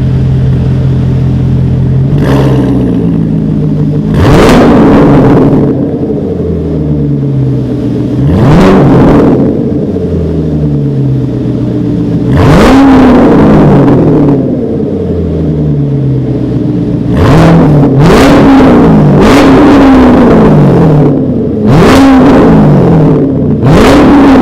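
Corvette C7 V8 through a titanium full exhaust system, revved about eight times: each blip climbs quickly and falls slowly back to a steady idle, and three blips come in quick succession about two-thirds of the way through.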